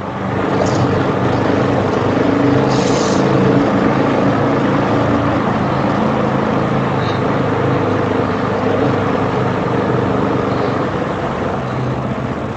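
Motorcycle engine running at a steady speed under a loud rush of wind and road noise.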